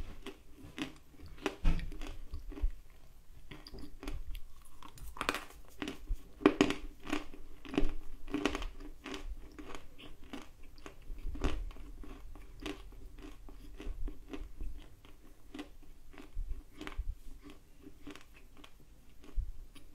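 Crunching and chewing of dry edible clay close to the microphone: many crisp crunches in quick, uneven succession, coming in denser clusters with quieter stretches between.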